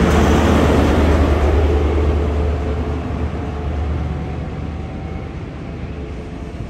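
High Speed Train (InterCity 125) passing and moving away, its Class 43 diesel power car going by: a steady low engine drone over rail noise, fading gradually.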